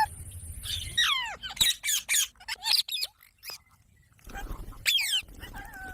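Ringneck parakeet calls: a quick run of sharp, shrill screeches falling in pitch about a second in, a short pause, then another burst of screeches about five seconds in.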